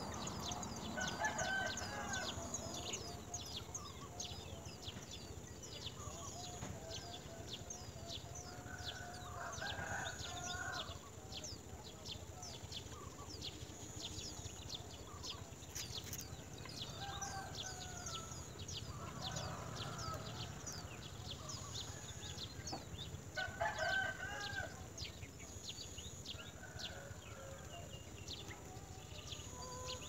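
Domestic chickens clucking and calling in short phrases every few seconds, the loudest about a second in and again near the 24-second mark, over a steady run of quick, high chirping from small birds.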